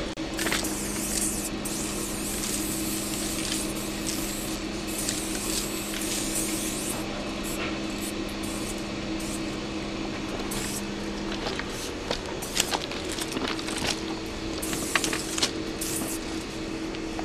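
Aerosol spray paint cans hissing in repeated bursts as graffiti is sprayed, over a steady low hum. A few sharp clicks and knocks come in the second half.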